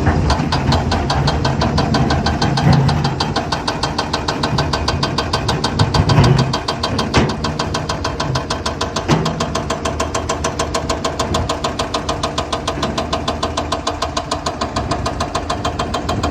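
Excavator's diesel engine running with a fast, even throb. It swells briefly about 3 and 6 seconds in, and there are sharp knocks around 7 and 9 seconds.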